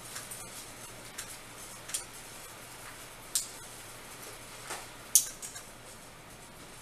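Several light, sharp clicks and taps from hands handling the tablet and cleaning paper over its screen, the loudest about five seconds in, over a faint hiss.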